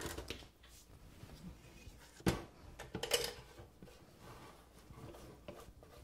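Plastic spatula scraping a ground-beef mixture out of a nonstick electric skillet, with small scrapes and knocks and one sharp knock about two seconds in.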